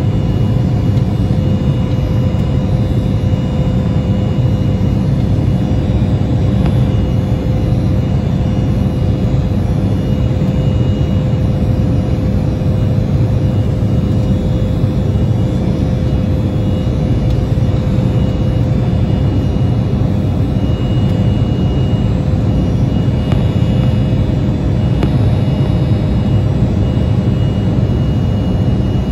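Embraer E175's GE CF34 turbofan engines in the climb, heard from inside the cabin as a steady low rumble with a faint constant whine on top.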